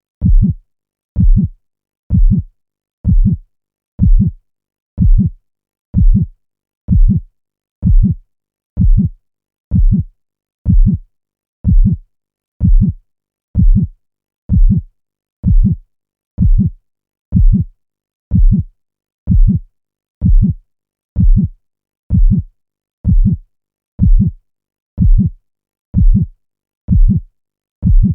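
A looped heartbeat sound effect: deep, evenly spaced thumps at about one beat a second, with silence between them.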